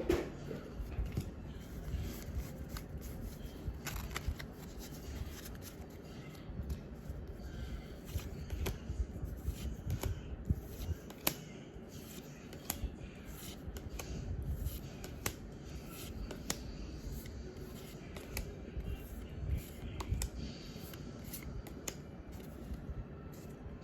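Pokémon trading cards and a foil booster pack being handled close to the microphone: soft rustling with frequent small, irregular clicks and crinkles as cards are slid and flicked, and one louder bump right at the start.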